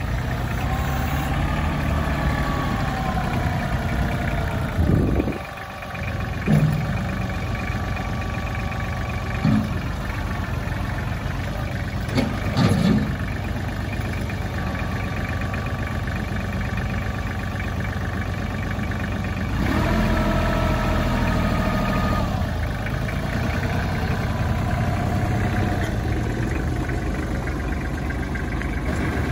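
Kubota L2500 compact tractor's diesel engine running steadily as the tractor drives and works its loader. The pitch rises and falls a few times, and it revs up louder for a couple of seconds about two-thirds of the way through. A few short clunks come in the first half.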